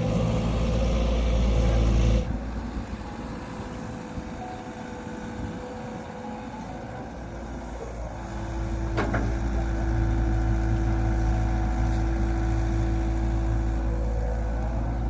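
Excavator's diesel engine running with a steady low rumble. It drops sharply about two seconds in and builds back up about eight seconds in, with a steady whine alongside for several seconds.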